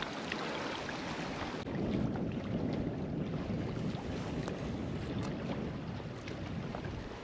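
Wind blowing over the microphone, a steady low rumble, with a few faint ticks.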